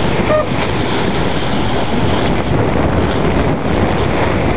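Steady, loud wind buffeting the microphone over the rush and slap of water along the hull of a small sailboat under sail.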